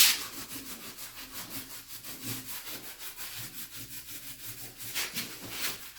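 Quick, repeated scraping strokes over ceramic tile as grout is rubbed into the joints, with a louder rasp right at the start and a couple of stronger strokes near the end.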